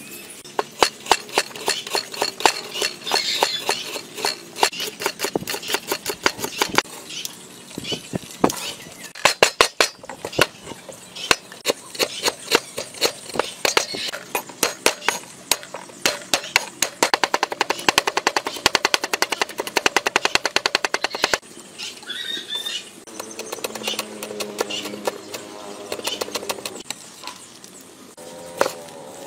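A knife chopping on a wooden cutting board: many sharp strikes, with a long, fast, even run of chops in the middle that stops abruptly about two-thirds of the way through. Garlic and limes are being cut.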